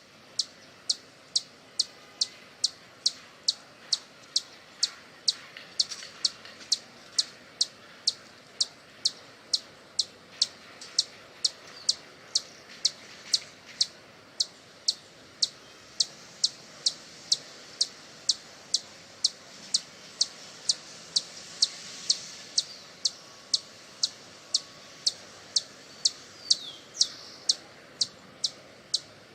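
Hummingbird giving a long series of short, high, sharp chip calls at an even pace of about two a second.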